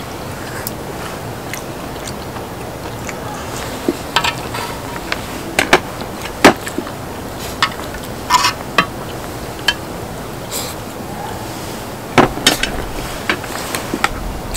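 Mukbang eating sounds: chopsticks or a spoon clicking and scraping on a cast-iron pot lid, with chewing and slurping, as scattered sharp taps over a steady hiss.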